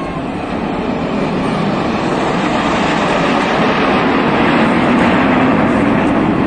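Jet engines of a five-ship aerobatic display formation flying past, a loud, steady rushing noise that grows louder and peaks about five seconds in.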